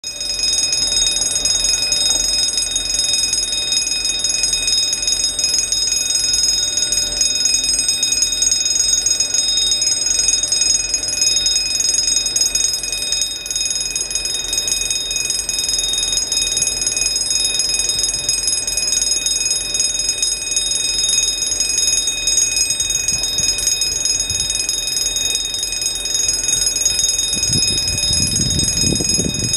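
Mechanical warning bell of a footpath level crossing ringing continuously, signalling that a train is approaching. In the last couple of seconds the low rumble of the approaching Class 159 diesel train rises under the bell.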